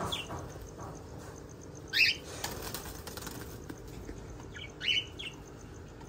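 Caged pet parrots giving two sharp squawks, about two seconds in and again near five seconds, with a brief flutter of wings just after the first.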